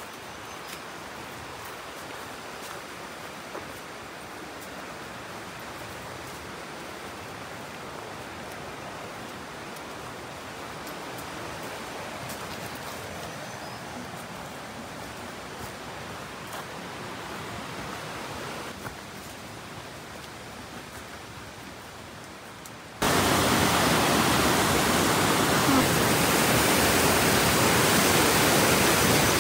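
Running water of a mountain river or waterfall, a steady even rush. About three quarters of the way through it jumps abruptly to a much louder, fuller rush of water.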